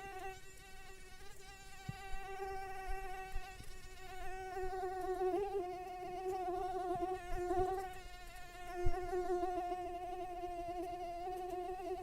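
Mosquito wingbeat whine: a steady high buzz that wavers slightly in pitch and loudness.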